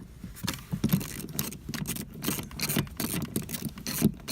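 Hand tools and metal sockets clinking and rattling in a series of irregular clicks and knocks.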